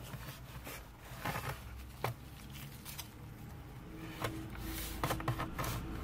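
Plastic pry tool working along the seam of a Dell Latitude 5520's bottom cover, making light scrapes and a few small clicks.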